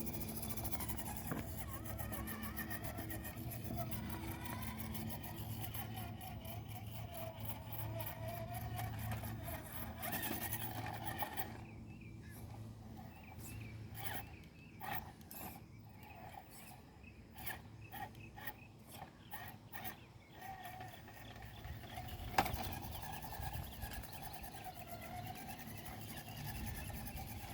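RC rock crawler's 550-size 13-turn electric motor and geared drivetrain whining as it crawls, the pitch rising and falling with the throttle. A patter of quick ticks runs through the middle, and there is one sharp click a few seconds later.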